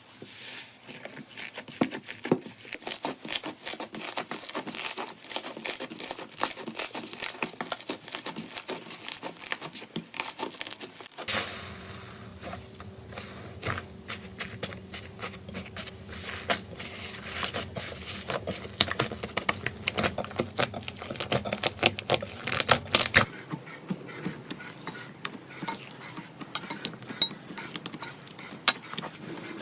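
Slime being squeezed and pressed by hand, with dense crackling and clicking. The sound changes abruptly twice, and a low steady hum lies under the middle part.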